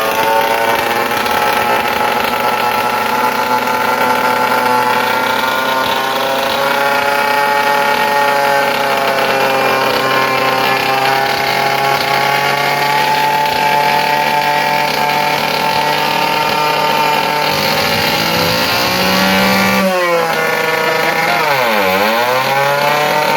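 A motor engine running loudly without a break, its pitch wavering slowly up and down, then dropping sharply and climbing back near the end.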